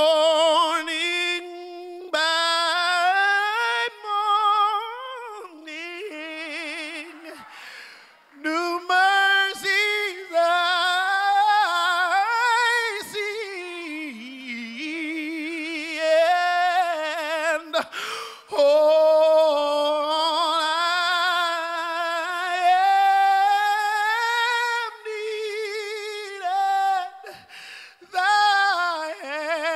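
A man singing a cappella in a high tenor voice through a microphone. He sings long, wordless, gospel-style melismatic runs and held notes with heavy vibrato, broken by brief pauses for breath.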